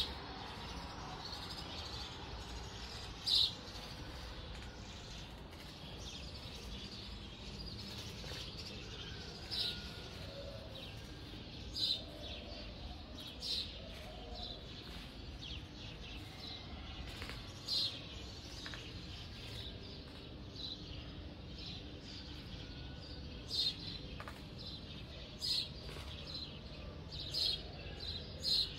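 A small bird chirping in short high notes every second or two, over a faint steady low hum.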